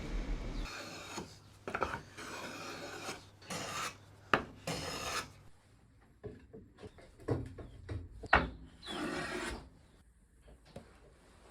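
Wood being worked by hand with a rasp or sandpaper: a run of scraping strokes, about five in the first five seconds, then a pause with a few light knocks and one more stroke near the end.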